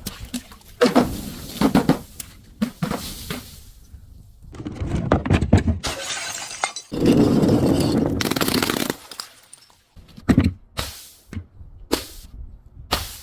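Brittle objects being crushed and breaking: a run of sharp cracks and snaps, two longer stretches of dense crunching about five and seven seconds in, then a few more sharp cracks near the end.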